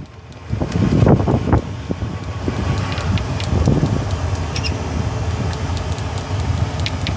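Wind buffeting the phone microphone over a steady low road rumble from a small electric utility vehicle driving along a paved road, with louder gusts about a second in.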